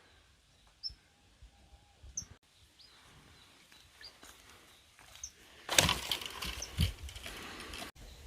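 Short high chirps from small birds every second or so, then, from just past halfway, a loud rustling noise lasting about two seconds that cuts off suddenly.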